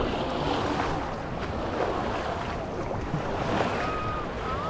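Sea waves washing onto the shore, with wind blowing on the microphone and faint voices of people in the distance.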